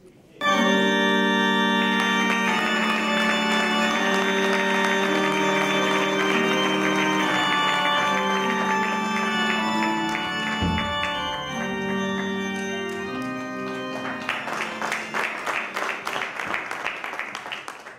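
Organ music starts suddenly and plays sustained, held chords. Audience applause comes in over it in the last few seconds.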